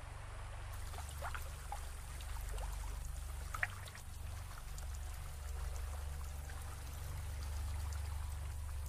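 Flowing, trickling water with a steady low rumble underneath, and a few faint short high sounds in the first few seconds.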